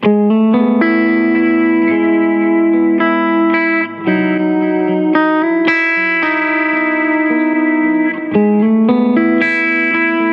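Miked electric guitar amp played back from a recording: a run of ringing chords and single notes, each struck and left to sustain, with new ones coming every second or so.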